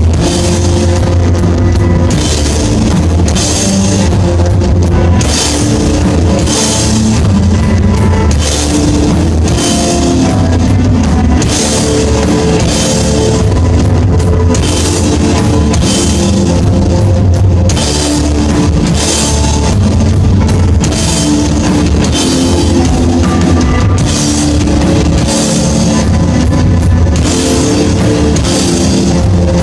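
A rock band playing live: a drum kit with regular cymbal hits about once a second, over guitar and a heavy bass line.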